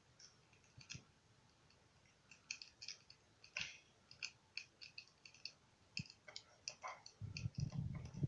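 Large bonfire crackling faintly, with irregular sharp pops from the burning wood. A low rumble comes in near the end.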